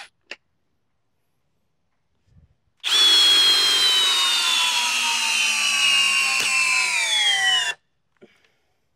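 Hercules cordless hammer drill in its low, high-torque speed driving a 5/8 by 10-inch lag screw into a log. Its motor and gearbox whine for about five seconds, the pitch falling steadily as the lag sinks in, then stop abruptly.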